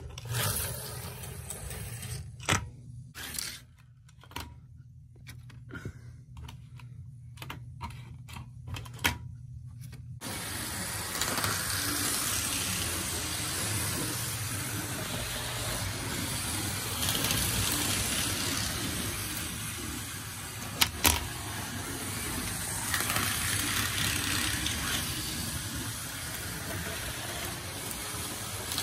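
Tyco slot car's small electric motor whirring around the plastic slot track, with an HO-scale toy train running alongside. After a low hum with scattered clicks, the whir starts abruptly about a third of the way in and then runs steadily, swelling twice as the car laps, with a couple of sharp clicks about two-thirds of the way in.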